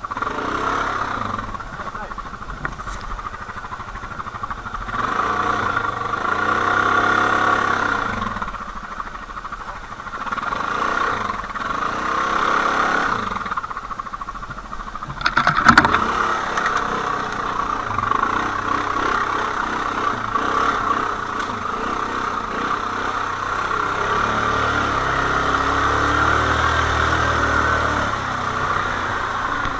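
ATV engine running under load while ridden off-road, revving up and down in swells every few seconds, with one sharp knock about halfway through.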